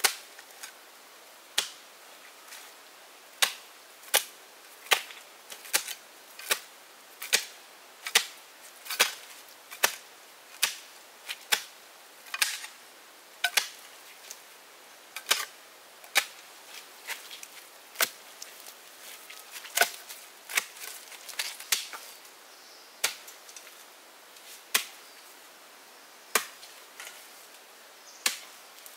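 Chopping wood with a hand tool: a long run of sharp strikes, about one a second, coming more slowly near the end.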